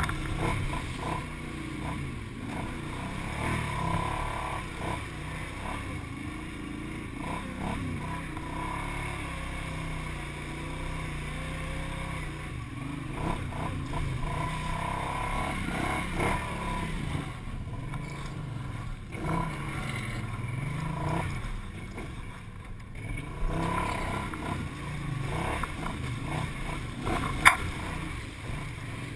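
ATV engine running while the quad is ridden along a trail, its pitch rising and falling with the throttle. A single sharp knock near the end.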